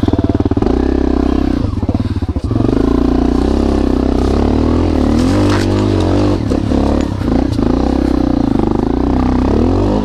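Honda CRF250L's single-cylinder four-stroke engine revving hard as the dirt bike pulls away and climbs a rough trail. It comes in suddenly at the start, with the throttle easing briefly about two seconds in.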